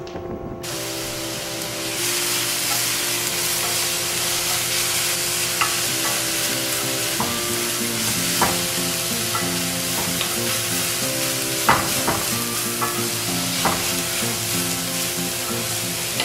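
Swiss chard sizzling in a hot cast-iron skillet as it is stirred with a wooden spoon, with a few sharp clicks against the pan.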